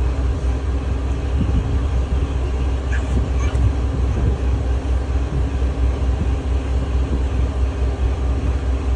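A boat's engine running steadily under way, a continuous low drone.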